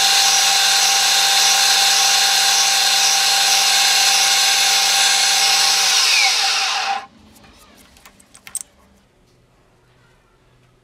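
Drilling machine spindle running with a small drill bit boring the pin hole through a wooden knife handle block. About six seconds in the bit comes out and the machine winds down, stopping a second later, followed by a few faint clicks from handling the workpiece.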